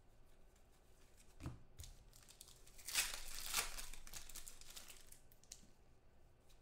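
A foil trading-card pack being torn open and its wrapper crinkled, with the loudest rustle about three seconds in. A soft thump comes about a second and a half in.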